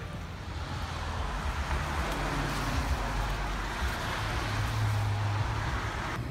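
Street traffic: cars passing on a wet, slushy road, a steady hiss of tyres with a low rumble beneath, swelling a little midway.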